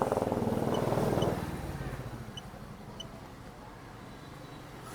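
Honda Activa BS6 scooter's single-cylinder engine running, then dying away about a second and a half in. A few short, high electronic beeps follow.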